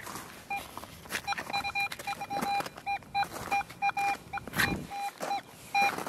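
Nokta Makro Legend metal detector sounding its iron signal as the coil sweeps over a buried piece of iron. From about half a second in it gives a run of short beeps, all at the same pitch, some of them broken or wavering.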